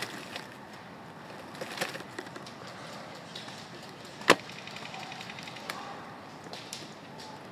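Low steady outdoor noise with a few faint clicks, and one sharp crack a little over four seconds in.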